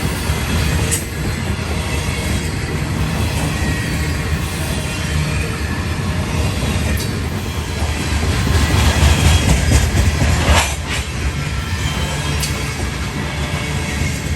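Freight train hopper cars rolling past: a steady low rumble of steel wheels on the rails with a few sharp clacks, swelling a little about two-thirds of the way through.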